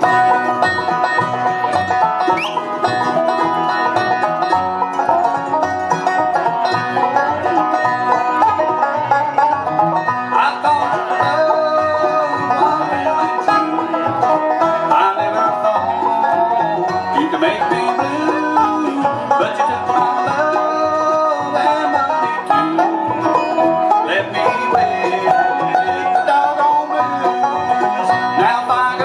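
Live bluegrass band playing an instrumental, the banjo to the fore over guitar and a steady low beat.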